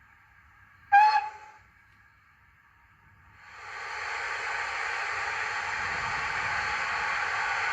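Sound-fitted OO-gauge model steam locomotive (Bachmann H2 Atlantic) playing through its small onboard speaker: one short whistle toot about a second in. A steady steam hiss follows from about three seconds in as the locomotive sets off.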